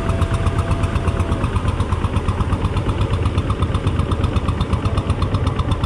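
Kubota tractor's engine running steadily under load with a fast, even chug, towing a loaded platform through floodwater.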